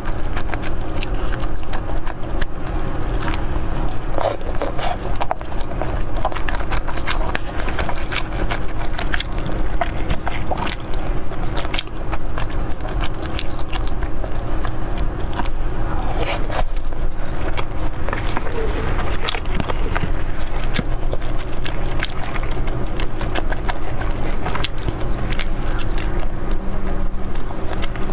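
Close-miked biting and chewing of food, many small wet clicks of the mouth over a steady low background hum.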